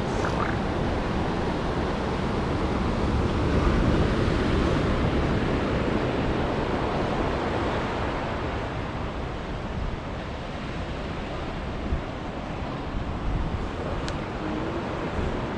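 Ocean surf washing steadily onto the shore, swelling about four seconds in, with wind rumbling on the microphone.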